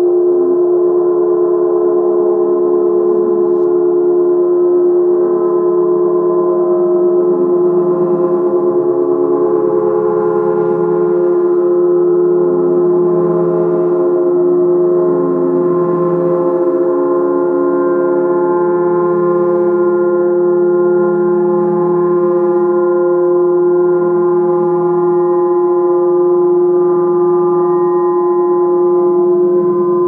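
Gong recording played backwards: a steady, sustained drone of many overtones, one middle tone the strongest, with no strike heard.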